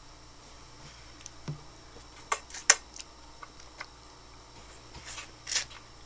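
Eating sounds close to the microphone: a few sharp crisp clicks and crunches of biting into crispy chicken wings, with two longer crackly crunches a little after five seconds in.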